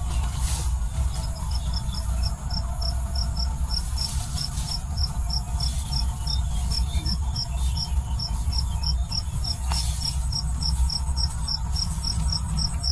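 A cricket chirping steadily, short high-pitched chirps at about three a second, starting about a second in, over a steady low rumble.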